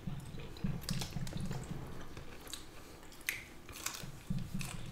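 Close-up eating sounds: chewing and soft mouth clicks from people eating pho, with a few short, sharper bites, one into a rice-paper spring roll near the end.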